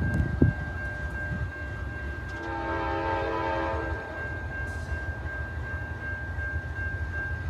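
Air horn of an approaching CSX freight locomotive, still some way off, sounding one chord-like blast about a second and a half long, starting about two and a half seconds in, over a steady low rumble.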